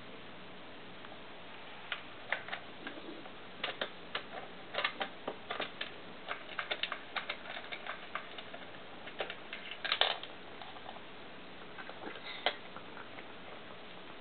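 A cat eating dry kibble from the plastic tray of an automatic pet feeder, pawing food out of the feeder: irregular crunches and clicks of kibble against hard plastic, starting about two seconds in, with a dense loud cluster about ten seconds in.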